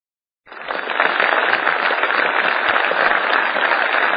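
Recorded applause that fades in about half a second in and then holds steady and loud.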